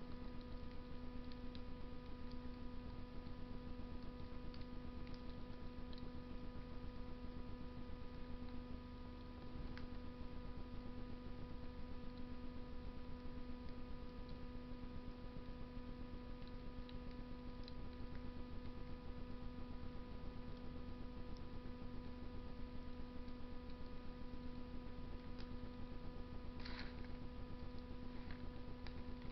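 Fire in a Russian stove crackling sparsely, with scattered faint pops and a short cluster of crackles near the end, over a steady electrical hum.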